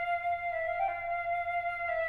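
Background music: a single melodic instrument holding long, slow notes, with a brief change of note around the middle and a step down to a lower note near the end.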